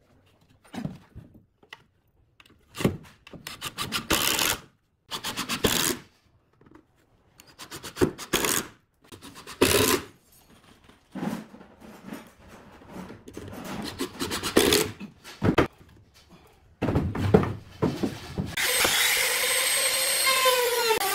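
Cordless driver running in a series of short bursts as it sets screws into pine boards, with brief pauses between. Near the end a trim router starts up and runs steadily with a high whine.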